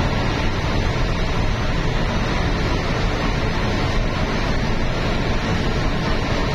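Steady road and wind noise of a vehicle travelling at highway speed, an even rush heaviest in the low end.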